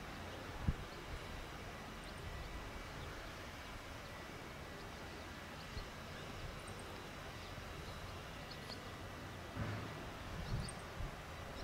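Quiet outdoor ambience with a few faint short bird chirps and a few low thumps, near the start and again near the end.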